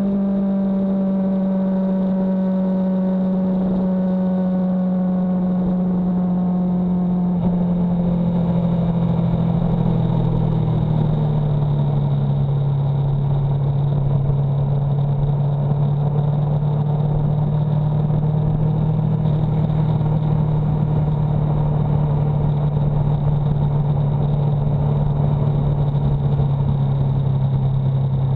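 Motorcycle engine running on the road, its note falling steadily as the bike slows from about 65 to 45 mph, with rushing wind and road noise that grows louder about eight seconds in.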